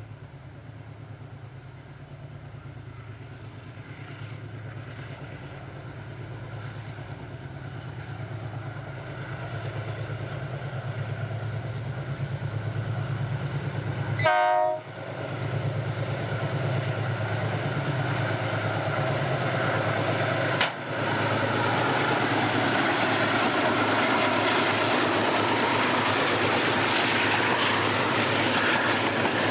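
Engines of two GE C30 diesel-electric locomotives rumbling steadily and growing louder as the freight train approaches. A short horn blast sounds about halfway. Then the tank cars roll past close by with loud wheel and rail noise.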